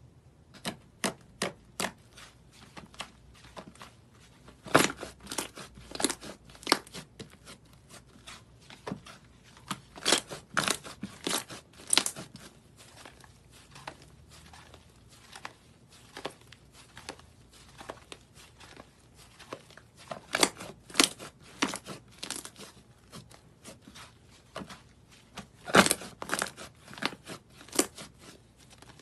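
Thick tan slime worked by hand, poked, stretched and pressed, giving off sharp crackling pops and clicks in quick clusters with quieter gaps between.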